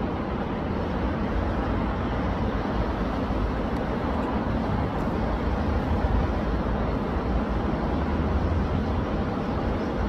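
Steady rush of a rain-swollen stream running high and muddy, an even noise with a strong low rumble and no breaks.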